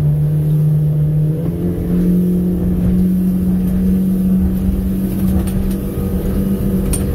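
Outboard motor pushing a small boat along on plane, running steadily at cruise. About a second and a half in its pitch rises as the throttle is opened, from about 4,200 rpm toward 5,800 rpm, and then holds at the higher speed.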